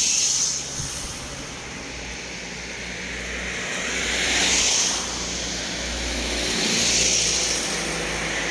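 Road traffic passing by: cars and a minibus go past one after another, each a swelling and fading whoosh of engine and tyre noise, over a steady low rumble.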